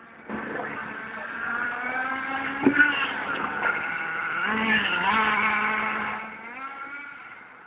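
A GV Hunter 1/8-scale nitro buggy's Force .25 two-stroke glow engine revving, its high whine rising and falling in pitch as the buggy drives, with one sharp knock about two and a half seconds in. The engine fades away near the end.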